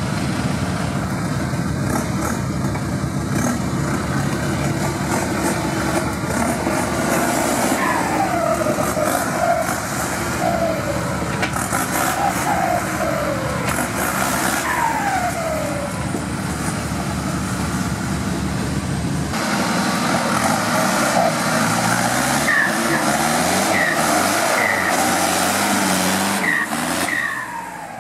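UAZ 469 off-road vehicle's engine running hard under load through mud, the revs rising and falling, with the pitch dropping sharply several times as the throttle comes off.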